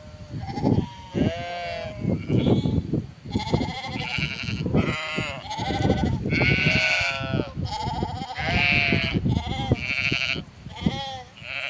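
A flock of sheep bleating, many wavering calls overlapping and following one after another.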